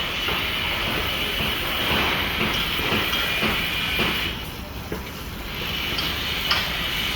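Construction site din with irregular clicks and knocks of steel rebar being handled and tied, over a steady background noise that dips briefly about four seconds in.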